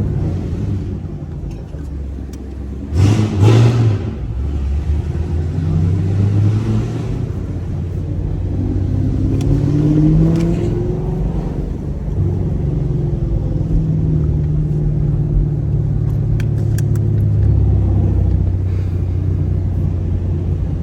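Chevrolet Camaro SS 1LE's naturally aspirated V8 running under way in a manual car. There is a brief loud surge about three seconds in, the engine pitch rises as it accelerates a few seconds later, and it then holds a steady cruise.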